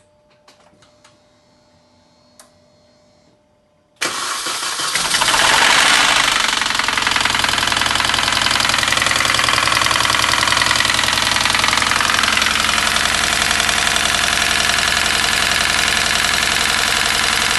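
Mini Cooper S R53's supercharged 1.6-litre four-cylinder engine starting about four seconds in after a few faint clicks, flaring up briefly and then settling to a steady idle. It idles with a knocking noise that persists despite a new timing chain tensioner and timing kit; the owner does not know its cause.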